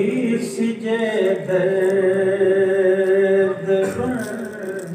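A man's voice chanting a slow devotional mourning recitation for Imam Hussain, holding long drawn-out notes and easing off near the end.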